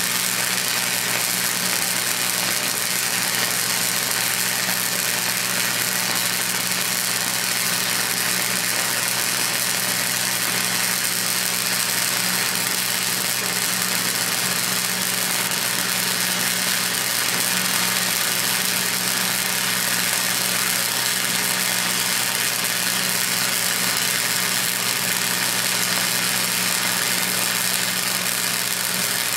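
Wire-feed welder arc running continuously on steel at about 100 amps: a steady sizzling crackle like bacon frying over a low hum, the sound of a well-set arc.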